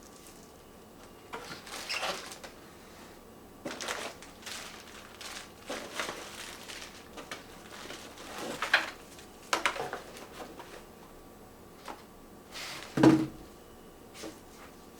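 Box and packaging being handled during an unboxing: irregular rustles, scrapes and light knocks, with one louder thump about thirteen seconds in.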